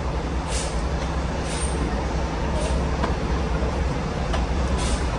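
Diesel coach bus running at close range as it creeps slowly past, a steady low rumble, with short hisses about once a second.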